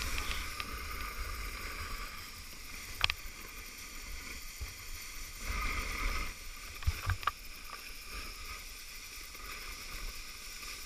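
Sledge sliding fast down a snow slope: a steady rushing scrape of the runners on snow, with wind rumbling on the microphone. A few sharp knocks break in, the loudest about three seconds in and two more around seven seconds.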